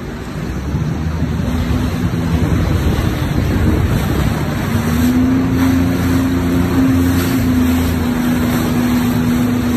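Sea-Doo GTX Limited 300 personal watercraft's supercharged Rotax three-cylinder engine running steadily, with water splashing against the hull. The engine note grows stronger about halfway through.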